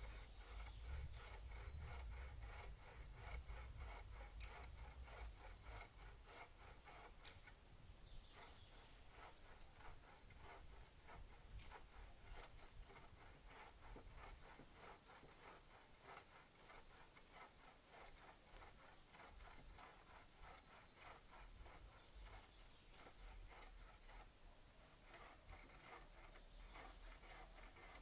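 Faint scraping of a hand tool working wood, in many quick strokes.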